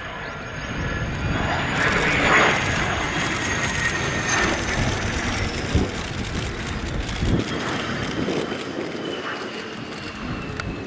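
Belgian F-16's Pratt & Whitney F100 turbofan on a landing approach: a steady jet roar with a high turbine whine that slowly falls in pitch as the fighter passes low and touches down, loudest about two seconds in.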